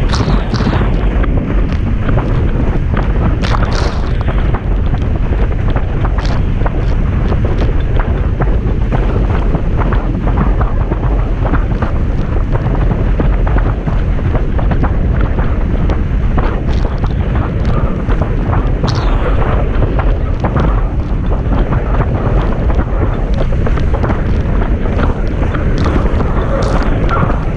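Heavy wind buffeting an action camera's microphone on a windsurf board planing at speed, over the rush of water and spray beneath the hull. A few brief splashes cut through now and then.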